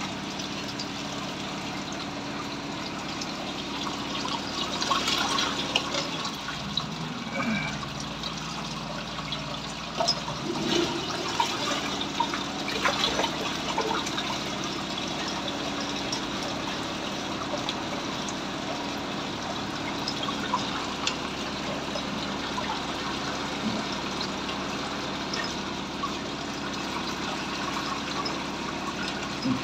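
Wastewater pouring and splashing through a mesh strainer into a drain pit, steady throughout, with a low steady hum underneath and a few brief clatters.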